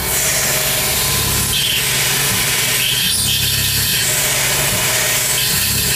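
Tormach PCNC 1100 CNC mill running, its spindle turning a cutter through an aluminium block. The low rumble of the cut swells and eases every second or two.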